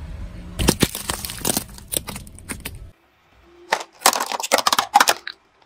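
Car tyre rolling over a bundle of plastic glue sticks, crushing them with several sharp cracks over a low rumble. After a short pause, a tyre presses down on a thin plastic tub of jelly, the tub and lid crackling and snapping as they give way.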